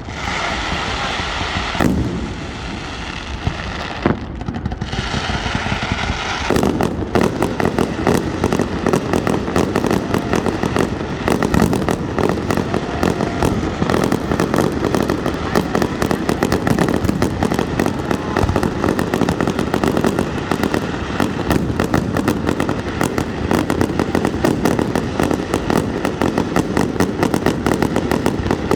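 Fireworks going off. First comes a hiss with a few steady tones, broken briefly about four seconds in. From about six and a half seconds a dense, continuous crackle of rapid pops takes over.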